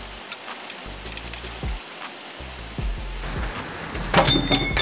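Hand tools working on an engine's air-conditioning compressor fittings: scattered light clicks and taps of a spanner on metal. About four seconds in comes a loud burst of metallic clinking with a ringing tone, over background music.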